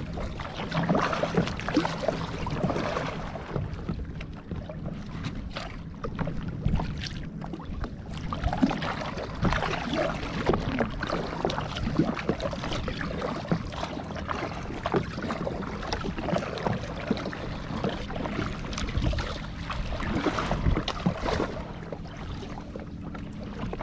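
Double-bladed kayak paddle dipping and splashing in the water, stroke after stroke, with water swishing around the kayak.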